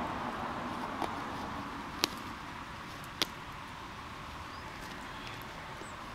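Outdoor ambience of a vehicle going away into the distance, its noise fading steadily, with three sharp clicks in the first few seconds and a few faint high chirps near the end.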